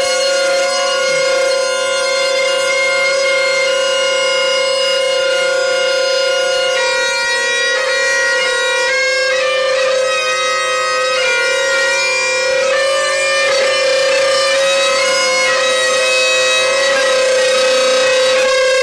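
Bagpipes played by a pipe major: a steady drone under a chanter melody whose notes change about every second.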